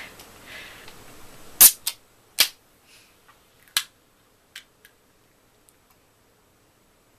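A few sharp clicks at uneven gaps, the loudest about one and a half seconds in, followed by fainter ticks.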